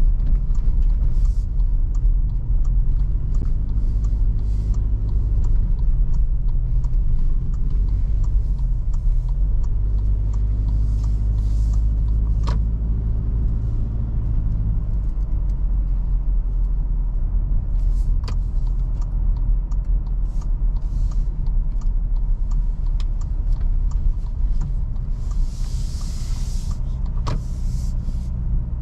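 2021 Toyota Fortuner 2.7 petrol 4x4 driving, heard from inside the cabin: a steady low road and engine rumble. The engine's hum is clearest for about ten seconds early on, and a few sharp single clicks are heard along the way.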